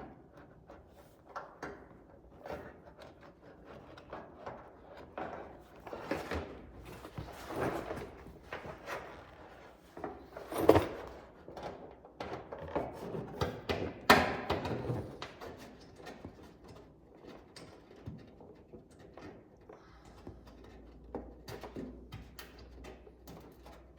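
Scattered clicks, clunks and light rattling of hand work on car body hardware: a wrench, nuts and bolts being handled and fitted. There are two louder knocks, about ten seconds in and again about three seconds later.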